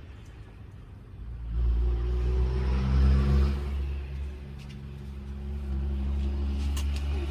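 A motor vehicle's engine running, its low rumble swelling about a second and a half in, peaking, then easing to a steady hum.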